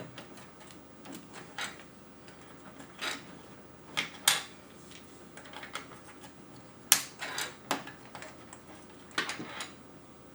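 Plastic keycaps being pulled off and pressed onto an Amiga keyboard's switches: a dozen or so scattered sharp clicks and snaps at irregular intervals, the loudest about four and seven seconds in.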